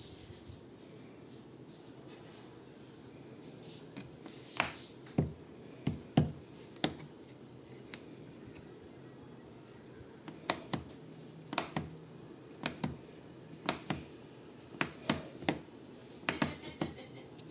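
Scattered sharp clicks and knocks of hard objects being handled, over a steady faint high-pitched hum.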